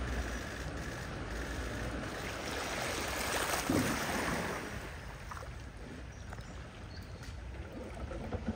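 Floodwater rushing and splashing, swelling to its loudest about three and a half seconds in and then easing off.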